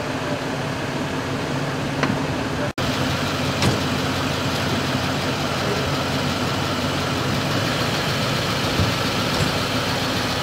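Vehicle engine idling steadily, a low even hum, broken by a split-second gap about three seconds in.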